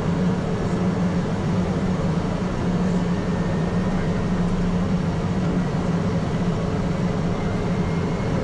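Cessna 208 Caravan floatplane's turboprop engine and propeller running in a steady drone as the seaplane moves across the water.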